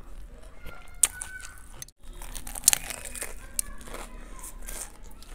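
Close-up crunching and chewing as a Kurkure-coated burger is bitten into, with sharp crackly crunches, the loudest about a second in and again just after the middle.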